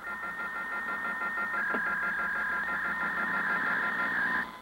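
Radio static hiss with several steady high tones and a fast, even flutter, with one click about a second and a half in; it cuts off abruptly near the end.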